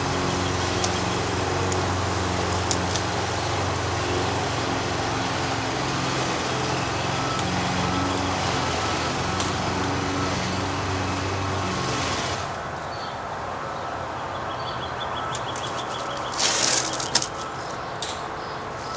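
A motor engine running steadily, stopping abruptly about twelve seconds in. Over it, plastic wrap crinkles and crackles as it is peeled by hand, loudest in one short burst near the end.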